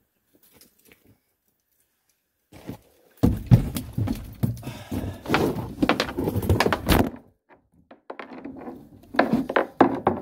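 Close handling noise: after a couple of nearly silent seconds with a few faint clicks, a dense run of knocks, thumps and rustling lasts about four seconds, then scattered knocks and clicks follow near the end.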